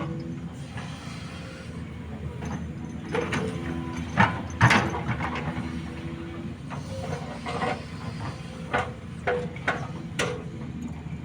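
SANY SY215C excavator's diesel engine running steadily under load, with irregular knocks and scrapes of rock against steel as the machine works large boulders; the loudest knocks come about four to five seconds in.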